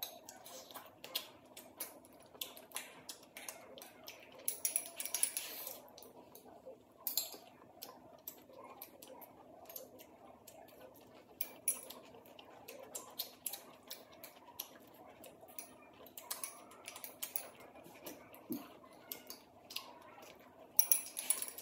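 Chopsticks clicking and tapping irregularly against porcelain rice bowls and plates while two people eat, with a few brief hissy eating noises.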